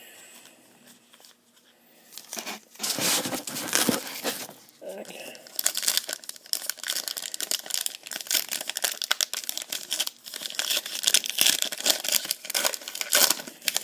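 Foil trading card pack wrapper being crinkled and torn open by hand. A dense run of crinkling and tearing starts about two and a half seconds in and keeps going.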